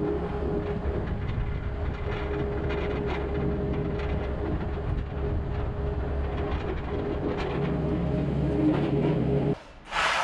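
Kubota skid steer loader's diesel engine running steadily under way, with the pallet forks and frame rattling over rough ground. It cuts off suddenly near the end.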